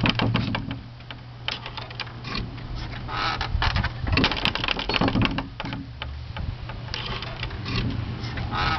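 Gate with a spring-loaded trigger latch being worked: an irregular run of clicks and rattles, over a steady low hum.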